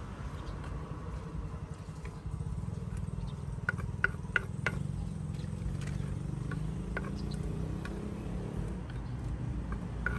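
Steady low rumble of street background noise with scattered light clicks, and a quick run of four sharp knocks about four seconds in.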